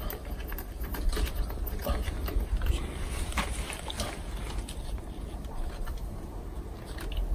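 Plastic clicks and taps of a battery-powered drip-irrigation water timer being handled and fitted onto a two-way plastic tap splitter, over a steady low rumble.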